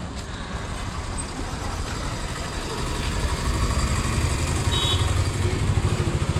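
Motor vehicle engine running close by with a steady low throb that grows louder about halfway through, amid street traffic.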